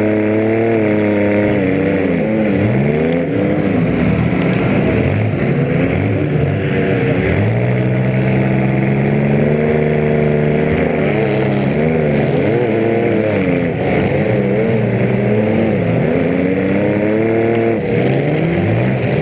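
Compact demolition derby car's engine running through short open exhaust stacks, revving up and falling back again and again as the car is driven around the arena.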